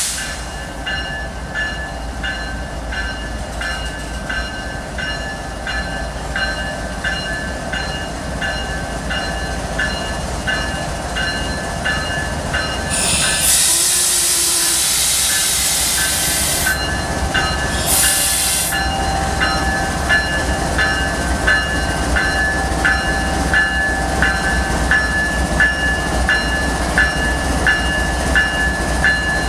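Diesel locomotives of a BNSF ballast train rumbling slowly past at close range and coming to a stop. A warning bell rings steadily, about twice a second. About 13 seconds in, a loud blast of hissing air lasts several seconds, and a shorter one follows about 18 seconds in.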